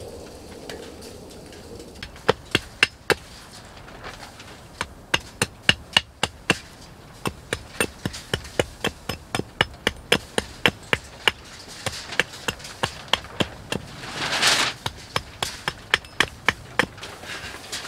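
Rapid runs of sharp knocks, about four or five a second, like something being struck or hacked over and over. A short rushing noise comes about fourteen and a half seconds in.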